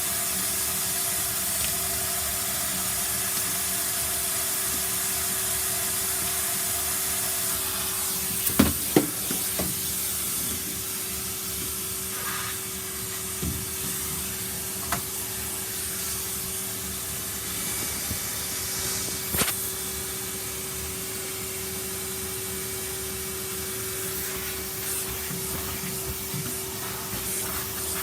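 Vacuum cleaner running with a steady rushing hiss and a constant hum, with several sharp knocks of the nozzle or tube against surfaces, a quick cluster of them about nine seconds in.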